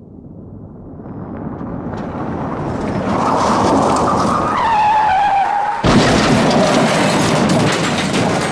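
Car crash sound effect: a vehicle grows steadily louder, its tyres screech with a falling squeal, then a sudden impact about six seconds in is followed by crunching, clattering debris.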